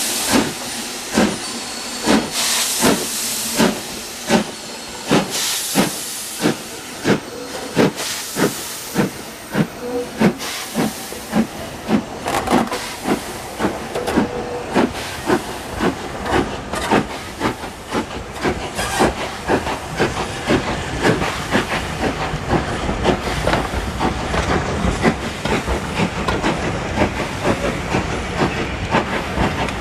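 Steam locomotive working a passenger train, its exhaust beating in regular chuffs about twice a second and slowly quickening, with bursts of loud steam hiss through the first ten seconds. In the second half a low rumble of the carriages rolling past on the rails builds under the chuffs.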